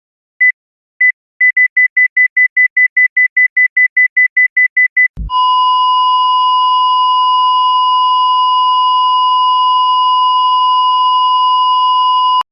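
Cardiac monitor beeping, first about two beeps a second. After about a second and a half it quickens to about four beeps a second, the racing rhythm of ventricular tachycardia. About five seconds in there is a short low thump, then a single steady flatline tone, the alarm for asystole, which cuts off suddenly near the end.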